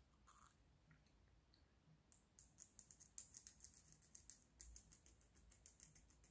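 Needle file rasping in quick, short strokes on a small 3D-printed plastic part, easing it so it will fit. The filing is faint and starts about two seconds in.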